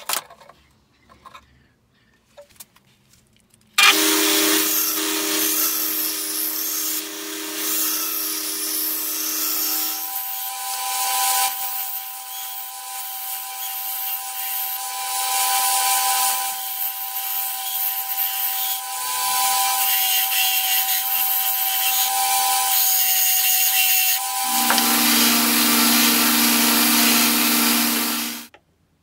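Electric power tool's motor running with a steady whine over a rough, rasping hiss, starting suddenly about four seconds in after a few light clicks. The whine jumps higher about ten seconds in, drops lower near the end, then cuts off abruptly.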